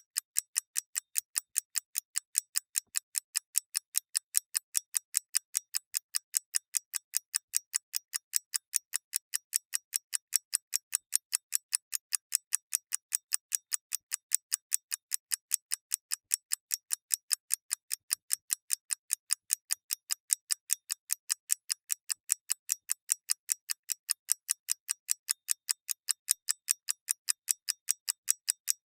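Clockwork mechanism ticking fast and evenly, about five sharp ticks a second.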